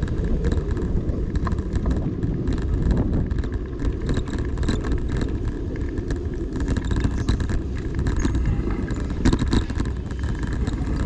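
Street ambience heard through a moving body-worn camera: a loud, steady low rumble of wind and movement on the microphone, with scattered light knocks and passing traffic.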